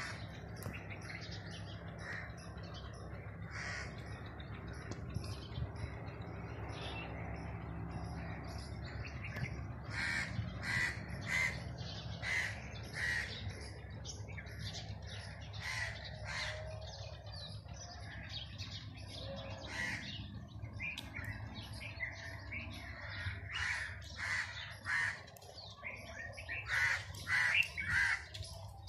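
Crows cawing over and over in short calls that come in bunches, thickest a third of the way in and again near the end, over a steady low rumble.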